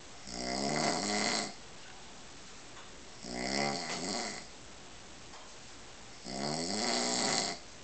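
A man snoring in his sleep: three long snores, about three seconds apart.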